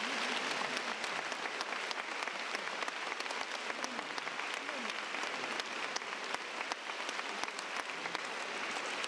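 A large audience applauding steadily, the clapping cutting in abruptly at the start, with faint voices mixed in underneath.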